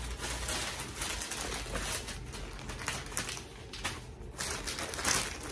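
Tissue paper and a plastic shipping mailer rustling and crinkling as a garment is folded and packed, in irregular crackly handfuls with a louder burst about five seconds in.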